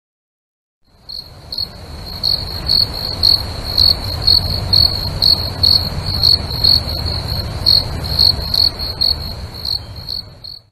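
High-pitched insect chirping, about two chirps a second, over a low steady rumble. It starts about a second in and stops just before the end.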